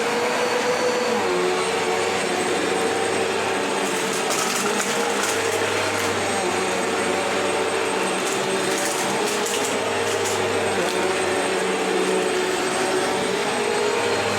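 Vacuum cleaner running steadily over an old, worn carpet. Its motor holds a steady hum, and between about four and eleven seconds in come scattered crunchy crackles of debris being sucked up.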